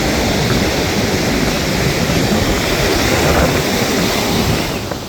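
Loud, steady rush of breaking surf mixed with wind buffeting the microphone, dropping off sharply near the end.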